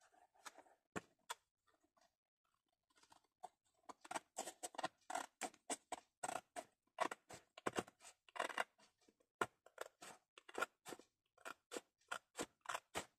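Scissors snipping paper, trimming the excess along the edge of a lid: a few faint snips at first, then from about four seconds in a steady run of about three snips a second.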